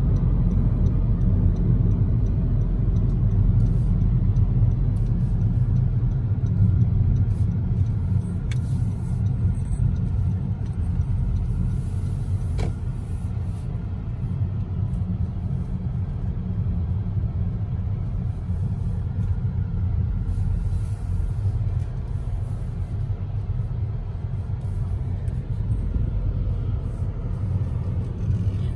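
Car road noise heard from inside the cabin while driving: a steady low rumble of tyres and engine that eases off a little after about eight seconds.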